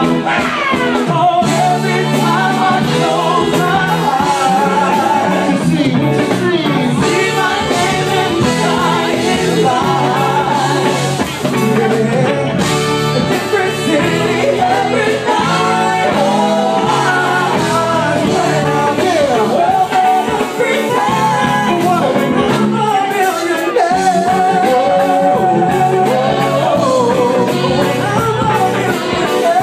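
Live band performance: a singer's voice through a microphone over keyboards and drums, with held notes wavering near the end.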